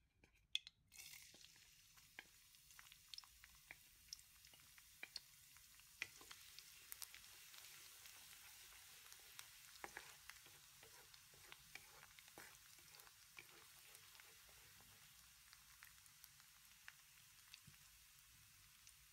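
Minced garlic sizzling in hot oil in a wok, with frequent small pops; the sizzle starts suddenly about a second in. Around the middle a wooden spatula stirs it, scraping across the pan in repeated strokes.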